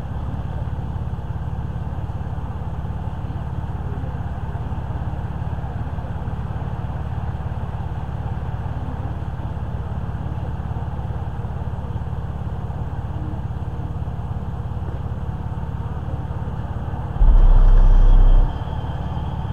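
Minivan engine idling steadily. About 17 s in, the two JL Audio 12W3v3 subwoofers play a single very loud deep bass note for a little over a second, then cut off.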